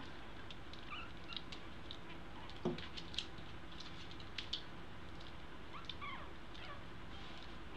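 Two-week-old American Eskimo puppies squeaking faintly as they try to walk, with scattered light ticks and patter of their paws. The loudest sound is one short call that drops in pitch, a little under three seconds in.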